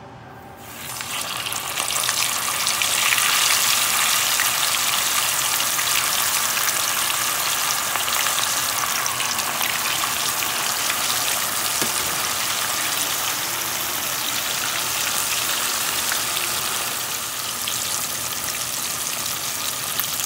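Flour-dredged fish pieces going into a pan of hot oil, which breaks into a loud sizzle about a second in and then keeps frying with a steady sizzle.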